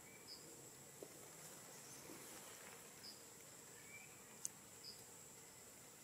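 Faint crickets giving a steady high-pitched drone, with three short high chirps and one sharp tick about four and a half seconds in.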